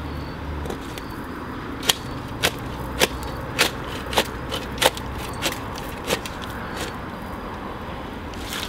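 A hand digging tool striking stony ground in a regular series of sharp knocks, about one every half second or so. The knocks start about two seconds in and stop about seven seconds in, over a steady low hum and a faint high insect tone.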